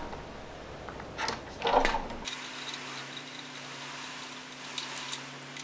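Faint handling sounds from hand tools at a mini bike's brake lever clamp: a couple of short clicks about a second and nearly two seconds in. A steady low hum follows.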